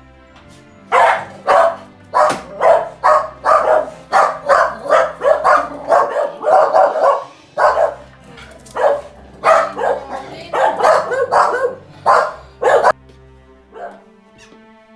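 A dog barking over and over, loud short barks about two a second, with a brief pause midway, stopping near the end. Soft background music runs underneath.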